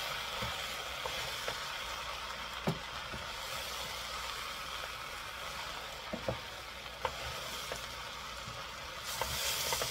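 Steady sizzling hiss of vegetables and sauce cooking in a stainless steel pot while they are stirred with a wooden spoon, with a few light knocks of the spoon against the pot.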